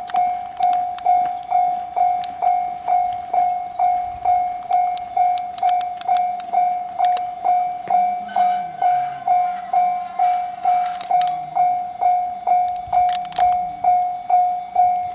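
Japanese railway level crossing alarm ringing: a single-tone electronic ding repeated evenly a little over twice a second, warning of an approaching train.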